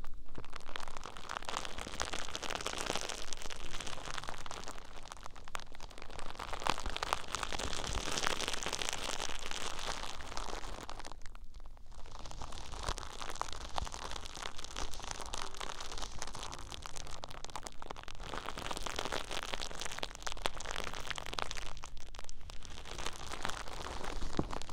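Close-up rustling and crackling of a plush fleece blanket rubbed against the microphone. It comes in two long stretches with a short pause about halfway.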